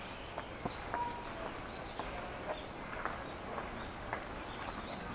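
Footsteps going up stone steps, light sharp taps every half second to a second, over outdoor ambience. A bird calls near the start with a short falling whistle.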